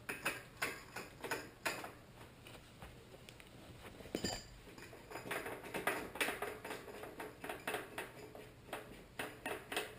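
Light metal clinks and rattles of bearing press tool parts being handled: a run of short, irregular clicks, a few a second.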